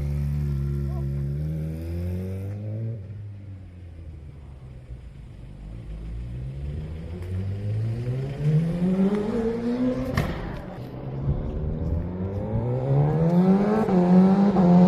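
Sportbike engine: its note falls and fades over the first few seconds, then climbs in a long rising sweep as the bike accelerates. About ten seconds in a sharp click and a sudden drop in pitch mark a gear change, and the revs climb again.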